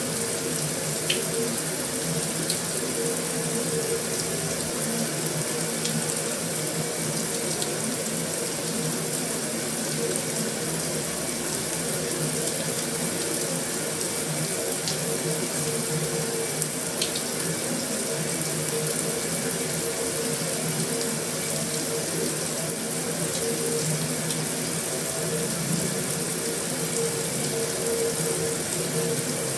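Heavy rain drumming steadily on a metal roof, an even rushing patter with a few sharper ticks of single drops here and there.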